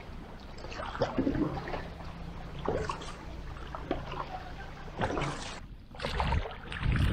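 Double-bladed kayak paddle dipping and splashing into calm water every second or so, with a low steady hum of a motorboat engine in the first half. Near the end, low wind rumble on the microphone on the open lake.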